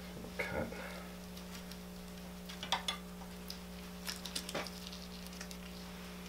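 A knife cutting and scraping along the inside of a hanging white-tailed deer carcass's spine: scattered faint clicks and scrapes in small clusters about half a second in, near three seconds, and around four seconds, over a steady low hum.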